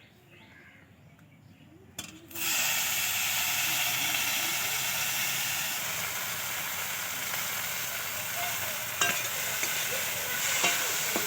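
Food going into hot mustard oil in a pan: after a knock about two seconds in, a loud sizzle starts suddenly and keeps on steadily. A few sharp clicks of a spatula stirring come near the end.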